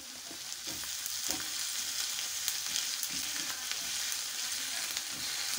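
Chopped onions and ginger-garlic paste sizzling steadily in hot oil in a kadai, stirred with a slotted metal spatula that scrapes against the pan a few times.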